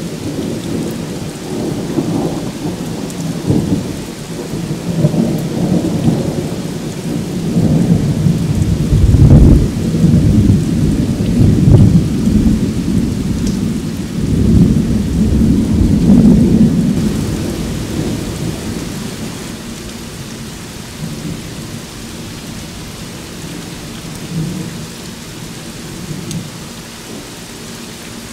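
Heavy rain falling steadily, with a long roll of thunder that builds over the first few seconds, rumbles loudest a third to a half of the way in, and slowly fades away in the second half.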